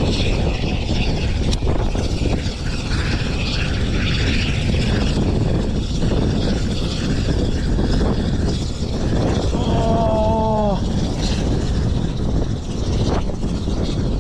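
Steady wind buffeting the microphone, a dense low rumble. About ten seconds in, a short pitched sound, falling slightly, lasts about a second.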